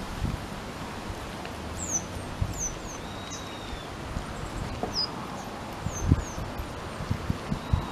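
Small birds calling: a scatter of short, high, falling chirps and one longer whistle, over a steady outdoor hiss. Several soft low thumps come through underneath, the strongest about six seconds in.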